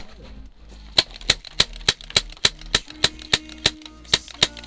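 Airsoft pistol fired semi-automatically in a rapid string of about a dozen sharp shots, roughly three a second, starting about a second in.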